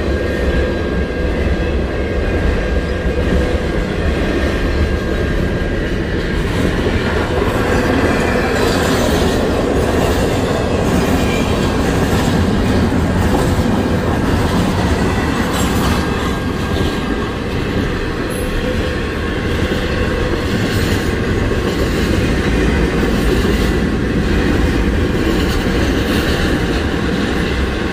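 Freight train of semi-trailers on flatcars rolling past at a steady speed: continuous low rumble with scattered clacks of wheels over rail joints and a faint steady wheel squeal through the first half.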